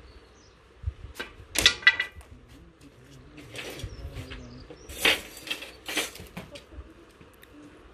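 Metal clattering and clanking as a wire barbecue grill and metal tools are handled, a few sharp knocks with a brief ring, the loudest about two seconds in.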